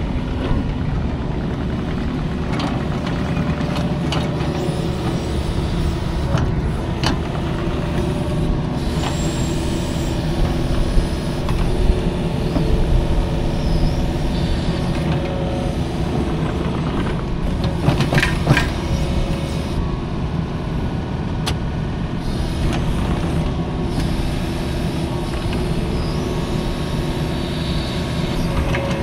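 Heavy diesel earthmoving machine running steadily at work, with a sharp metallic clank or knock now and then.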